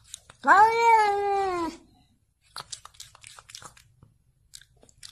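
A cat gives one long, drawn-out meow lasting over a second, rising at the start and then sliding slowly down in pitch. A few faint clicks follow.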